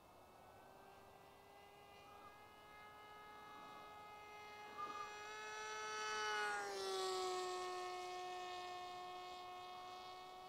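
Electric motor and propeller of an AR Wing Pro flying wing whining as it makes a fast low pass: a steady hum swells to its loudest about six and a half seconds in, then drops in pitch as the plane goes by and slowly fades.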